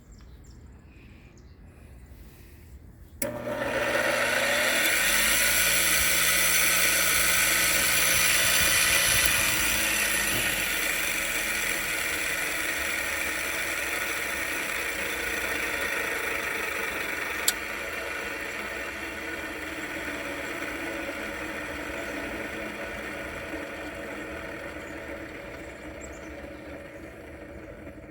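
Chicago Electric bench grinder switched on about three seconds in, spinning up to a steady whir. About ten seconds in, its motor hum drops away and the whir fades slowly as the wheels wind down, with one sharp click partway through.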